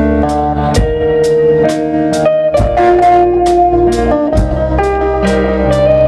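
Live band instrumental break: an electric guitar plays a held, bending lead melody over a drum kit and keyboard, with regular drum and cymbal hits about twice a second and no vocals.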